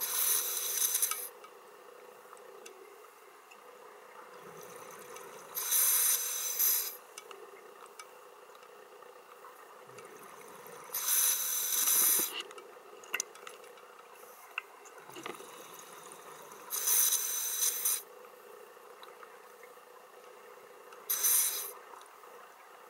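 A scuba diver breathing through a regulator: five exhalations, each a roughly one-second rush of bubbles from the exhaust valve, coming about every five seconds, with softer inhalations between them.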